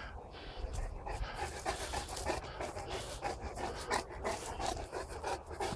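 Neapolitan mastiff panting rapidly, about three breaths a second, close to the microphone.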